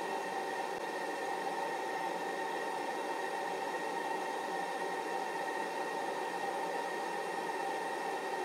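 Steady, even hiss with a few faint unchanging tones running through it, with no distinct handling sounds standing out.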